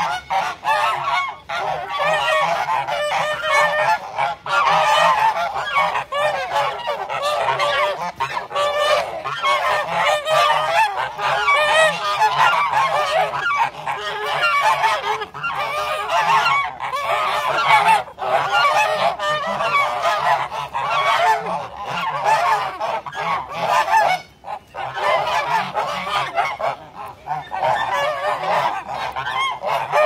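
A flock of domestic geese honking without a break, many calls overlapping, with a brief lull late on.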